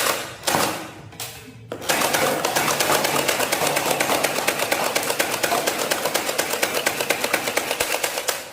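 Toy M249 machine gun firing: three short bangs, then about two seconds in a long, fast, even rattle of rapid-fire clicks that keeps going.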